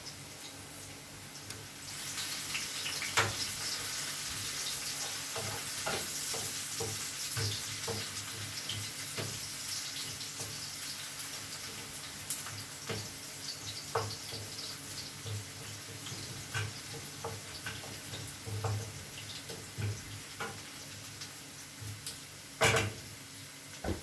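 Garlic, onions and tomatoes sautéing in oil in a pan, a steady sizzle that rises about two seconds in. Short clicks and knocks of stirring run through it, with one louder knock near the end.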